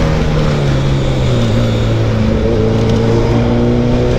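Suzuki Hayabusa's inline-four engine running at highway cruise. Its note drops slightly in the first second as the throttle eases, then holds steady, with wind rush on the microphone.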